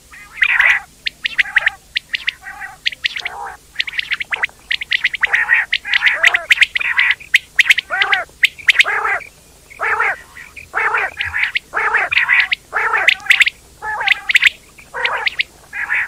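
Quail calling: a dense run of short chirping calls, about two a second, mixed with sharp clicky notes.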